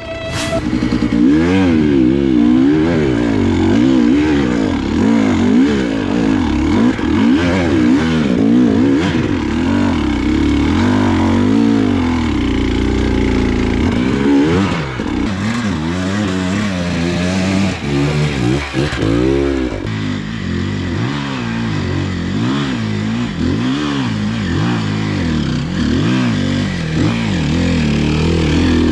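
Two-stroke enduro motorcycle engines, chiefly the KTM 300 EXC TPI under the camera, revving up and down unevenly as the throttle is worked in short bursts on a steep, rutted off-road climb.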